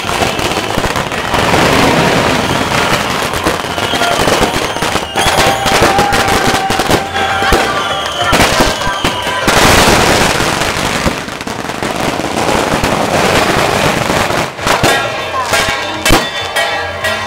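Strings of firecrackers going off in a rapid, dense crackle that grows thicker near the end.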